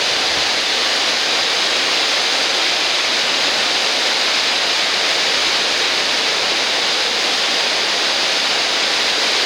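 River waterfall: water pouring over a drop with a steady, loud, even rush, strongest in the hiss, with no change throughout.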